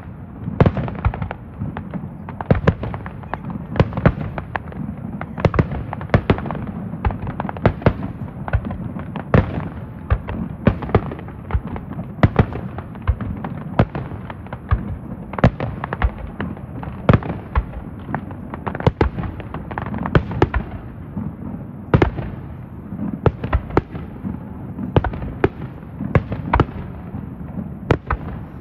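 A fireworks display of aerial shells bursting in a continuous barrage: sharp bangs come about one or two a second over a steady rumble.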